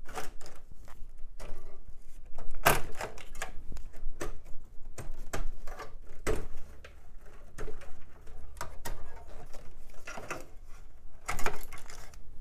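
Ribbon cables and power connectors being unplugged and pulled out of an old AT computer case by hand: irregular rustling and plastic clicks, with a few sharper knocks.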